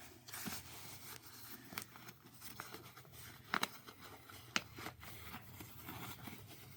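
Faint handling noises from a SWAT-T tourniquet being turned over in the hands: soft rustling with a few light clicks, three of them sharper.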